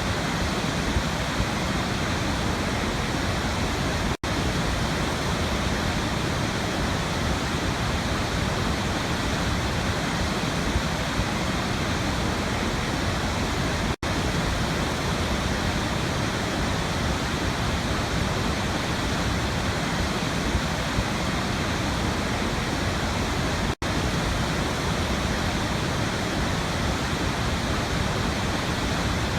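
Waterfall, a steady dense rush of falling water. It cuts out for an instant three times, about ten seconds apart.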